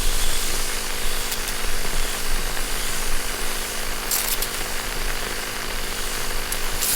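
A machine running steadily: a loud hiss over a constant motor hum, with brief louder surges of hiss about four seconds in and again near the end.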